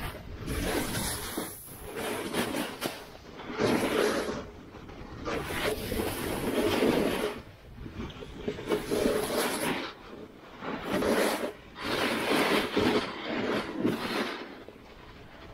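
Rushing, hissing noise of a run down a snow slope, swelling and fading every one to two seconds as the rider turns.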